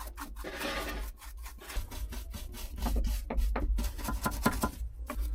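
Hand scrubbing and rubbing at the excavator's cab switch panel, loosening built-up dirt: a run of quick, irregular rubbing strokes over a low rumble.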